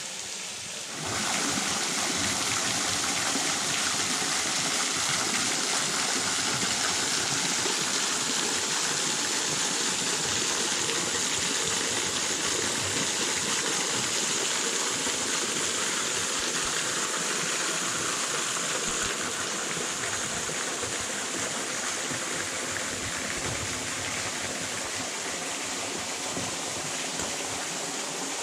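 Waterfall pouring steadily, an even rush of falling water that gets sharply louder about a second in and eases slightly about two-thirds of the way through.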